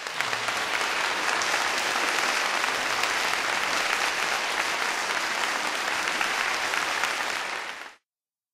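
Concert hall audience applauding, a dense steady clapping that fades out about eight seconds in.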